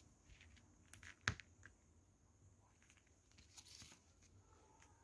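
Near silence: room tone with a few faint clicks, the sharpest about a second and a quarter in.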